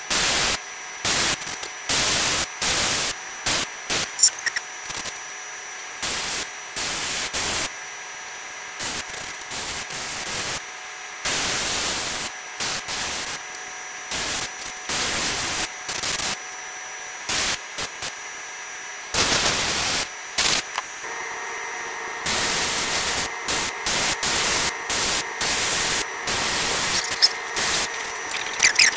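Gravity-feed airbrush spraying in short hissing bursts as the trigger is pressed and released. Most bursts last a second or less, with a couple of longer ones of about two seconds.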